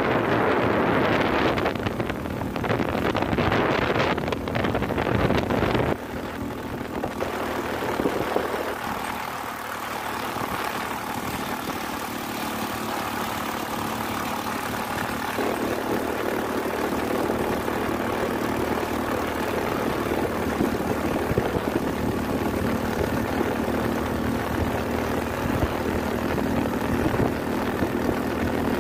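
Honda Vario scooter's single-cylinder engine running steadily under way. Heavy wind buffeting on the microphone covers it for the first six seconds or so, then drops away, leaving a steady engine hum.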